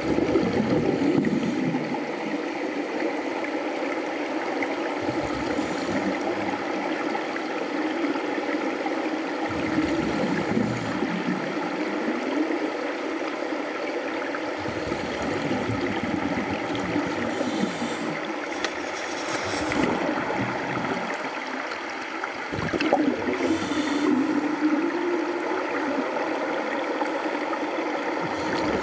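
Underwater sound of scuba divers breathing out through their regulators: bubble gurgles swelling every few seconds over a steady water hiss.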